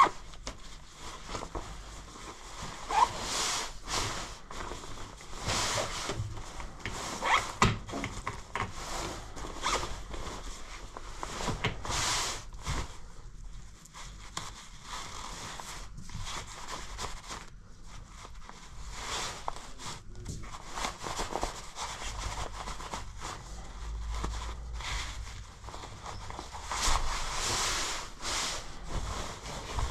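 Black membrane-shell winter jacket being handled by gloved hands: its nylon fabric rustling and zippers being pulled in irregular strokes.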